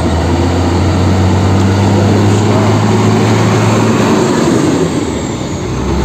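Hino rear-loader garbage truck's diesel engine running as the truck drives past close by: a steady low drone with road and engine noise. The low drone fades about four seconds in as the truck moves on.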